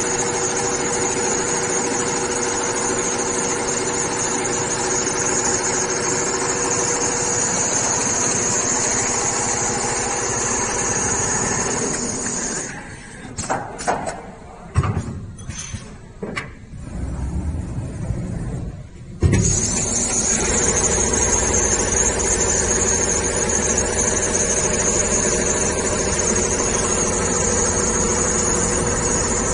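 Double-head automatic CNC sewing machine for heavy materials running, a steady mechanical hum with a high whine and several steady tones. About halfway through the running sound drops away for several seconds, leaving a few clicks, then comes back abruptly.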